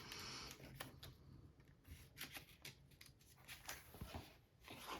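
Faint rustling and light clicks of paper: the pages of a picture book being handled and turned.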